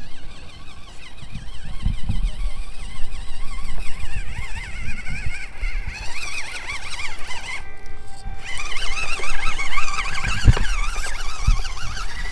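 Whine of a 1/24-scale micro RC crawler's small electric motor and gearbox, its pitch wavering up and down with the throttle, breaking off briefly about two-thirds of the way through. A low rumble with a few knocks runs underneath.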